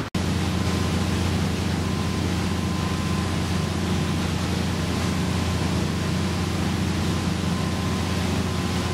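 Steady low drone of a motorboat's engine running under way, mixed with rushing wind and water noise.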